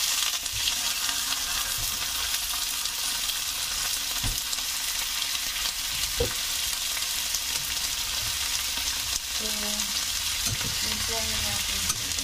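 Raw chicken pieces sizzling and spattering in hot oil in a wok as they are added one at a time, the meat still icy from freezing. A steady hiss, with a few soft knocks along the way.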